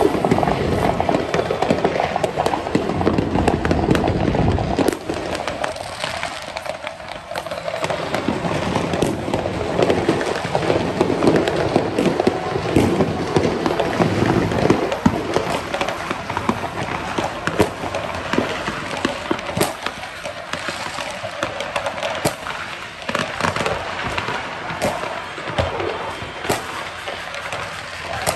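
Fireworks and firecrackers going off in a continuous barrage of bangs and crackling pops, heaviest and deepest in the first five seconds, then sharp cracks scattered through a steady din.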